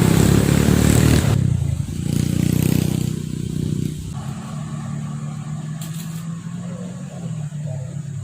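A motor vehicle's engine running close by. A loud rushing burst in the first second and a half gives way to an engine note that changes pitch and then settles into a steady lower tone.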